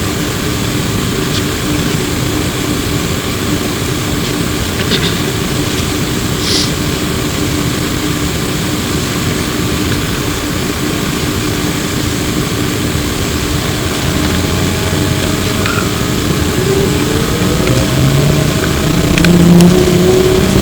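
Flyer E902 electric trolleybus heard from inside the cabin while under way: steady running noise with a constant hum and a few scattered clicks and rattles. Near the end a whine rises in pitch as the bus picks up speed.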